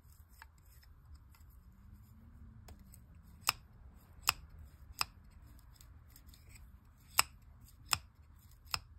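Bail wire of a Penn Spinfisher 716Z ultralight spinning reel being flipped over by hand and snapping across its trip: six sharp metallic clicks with faint ticks between. The stiff mechanism, just sprayed with lubricant, is working again.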